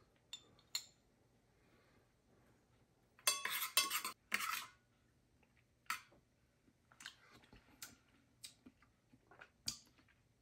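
Metal spoon clinking and scraping against a glass jar and a small stainless steel measuring cup while chili oil is spooned out and stirred into a thin sauce. A quick cluster of clinks comes about three to five seconds in, then single lighter taps.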